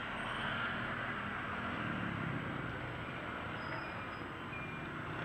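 Street traffic of motor scooters, motorcycles and motorcycle tricycles riding past, a steady mixed engine and road noise with no single loud event.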